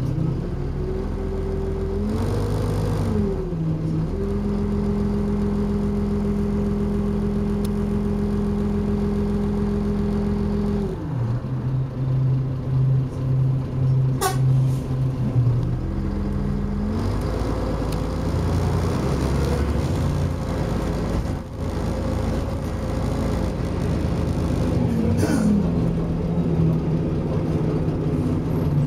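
Volvo Olympian double-decker bus's diesel engine heard from the upper deck, idling at a stop with the revs rising and falling briefly, then settling steady. From about two-thirds through it pulls away and accelerates, and the engine note drops once near the end. A short sharp click about halfway.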